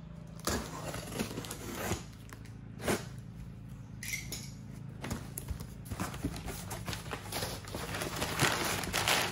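Cardboard shipping box being cut open with a box cutter and its flaps pulled back: scattered scrapes and knocks of the blade and hands on cardboard and packing tape, with a brief squeak about four seconds in. In the second half it turns to a denser rustling and scraping of cardboard flaps.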